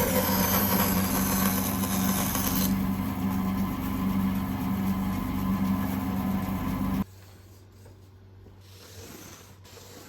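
Wood lathe running with a turning tool cutting rainbow plywood: a steady motor hum under a scraping hiss. The bright cutting hiss eases off a few seconds in while the lathe runs on, and about seven seconds in the sound drops sharply to a faint hiss.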